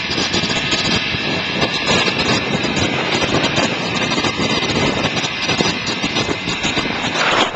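Motor scooter engine running under way while towing a trailer, with a constant clatter of rattles and knocks.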